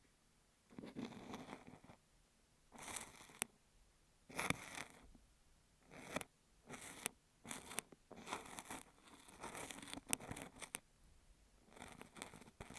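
Kinetic sand being scraped and pressed against an earphone microphone as an ear-cleaning ASMR trigger. It comes as a string of short, irregular scratchy strokes with sharp little clicks in among them.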